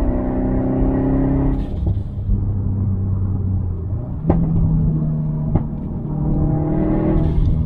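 Subaru WRX STi's turbocharged 2.5-litre EJ257 boxer engine with a muffler-delete exhaust, pulling under moderate load. About four seconds in there are two sharp cracks about a second and a half apart, the exhaust pops and bangs from its tune, and the engine pitch steps up at the first one.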